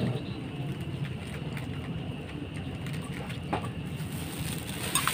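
Steady patter of light rain on wet pavement, with a faint clink of a metal cup being handled about three and a half seconds in.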